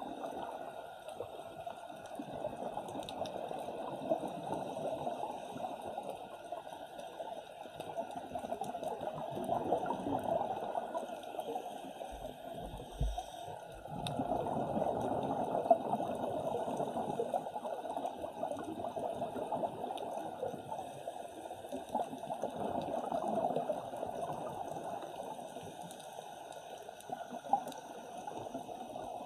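Muffled bubbling and churning of water heard underwater, typical of scuba divers' exhaled air bubbles, swelling and fading every few seconds.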